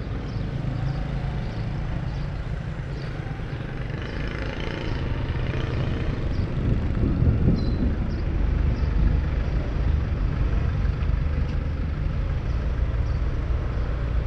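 Street traffic: a steady low engine rumble of passing motor vehicles, its pitch shifting about halfway through, with a louder swell of traffic noise a few seconds in.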